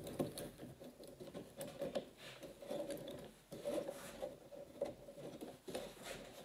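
Faint irregular clicks and scratchy handling noise as a band clamp's cable is pulled snug around a wooden hexagon frame and its metal corner jaws shift against the wood.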